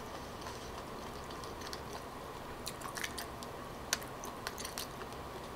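Soft wet mouth and skewer sounds of eating saucy tteokbokki rice cakes: a few sparse faint clicks and ticks over a steady low hum.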